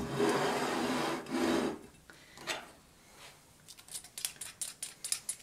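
A rubbing, rasping sound for about two seconds, then, after a short pause, a quick run of light ticks as a small fine-mesh sieve is tapped to dust powdered sugar over a plated Kaiserschmarrn.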